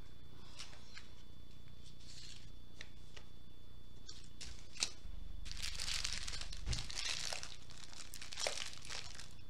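Small plastic sachets of diamond-painting drills crinkling and rustling as they are handled, with scattered light clicks. The busiest stretch of crinkling comes a little past halfway.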